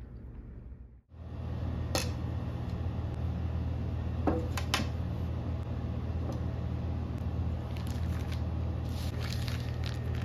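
Dishes and a spoon set down on a cloth-covered table with a few sharp clinks, then a plastic package of sambusa pastry sheets crinkling as it is handled near the end, over a steady low hum.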